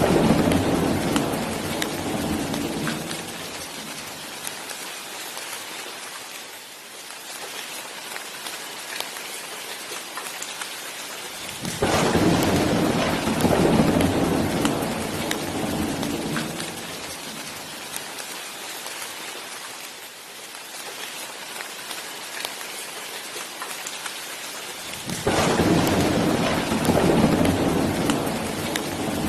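Steady rain with thunder rumbling three times: at the start, about twelve seconds in and about twenty-five seconds in. Each rumble swells and dies away over several seconds.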